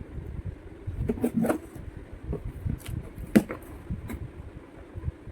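Parts of a toy kitchen set being handled and fitted together: irregular clicks and knocks, the sharpest about three and a half seconds in.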